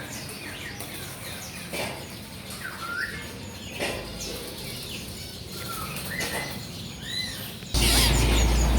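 Many caged songbirds chirping and whistling over one another in short calls, with a few brief flutters or knocks of wings. Near the end a much louder rushing noise suddenly comes in under the calls.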